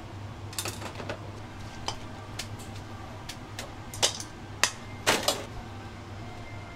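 Kitchen clatter of a wire noodle strainer, ladle and bowl knocking on stainless steel as a bowl of soba is made up: scattered sharp clinks and knocks, the loudest a few clatters about four to five seconds in. A steady low hum of kitchen equipment runs beneath.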